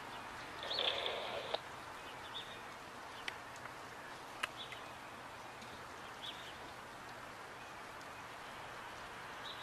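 Faint steady outdoor hiss with a brief louder burst of noise about a second in, a few short high chirps and a couple of sharp clicks; no engine or plow rumble comes through.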